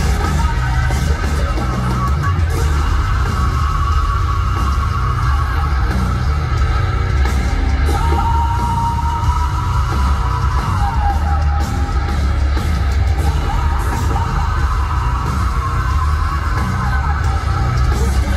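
Heavy metal band playing loud and steady, with distorted guitars, heavy bass and yelled vocals, heard from within the audience.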